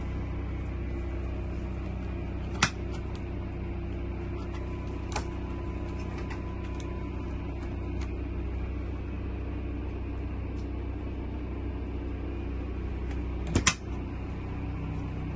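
Steady low rumble inside a motorhome, with sharp clicks from the Dometic refrigerator's door latch and handle being worked: one about two and a half seconds in, a lighter one a little later, and a double click near the end.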